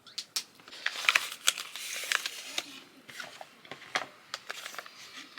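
Crinkly packaging being handled, with irregular sharp crackles and rustling, as a face-mask packet is opened.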